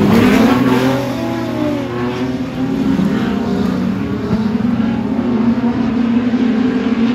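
Production sedan race cars running on a speedway track. Their engine notes rise and fall in the first couple of seconds, then one engine note holds fairly steady.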